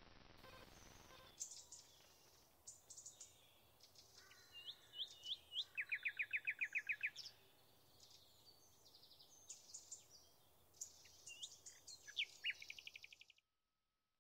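Small birds singing and calling, with many short high chirps and, around the middle, a loud run of about ten fast repeated notes. This follows a faint hiss with soft regular ticking in the first second or so, and the sound cuts off abruptly about a second before the end.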